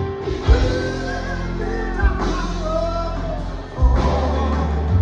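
Live rock band playing: drums, bass guitar and electric guitar with a sung vocal line over them, heavy drum hits landing a few times.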